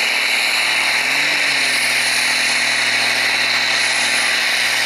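Turbocharged Zetor tractor's diesel engine running steadily under heavy load as it pulls a weight-transfer sled, heard as a dense, hissy, unbroken noise.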